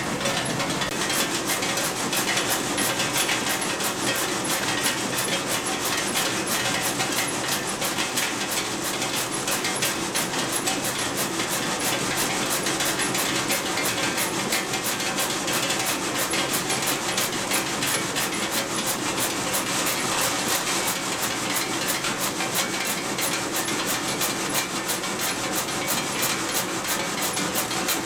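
Hard-candy forming machine running, its rollers and chain dies cutting and stamping a rope of peppermint candy into pieces: a steady mechanical clatter with a fast, even clicking rhythm.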